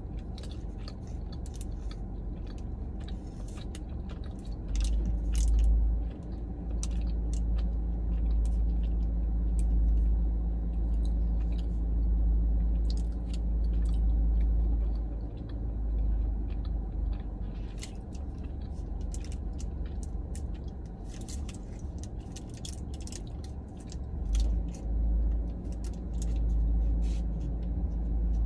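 Close-up chewing of a dense, soft chocolate bourbon ball: many short wet mouth clicks and smacks throughout. A deep low rumble comes and goes underneath, strongest from about five seconds in to about halfway through.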